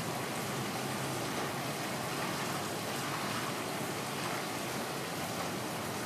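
Steady hiss of stormy weather outdoors: rain and wind, with traffic on wet pavement, and no distinct sounds standing out.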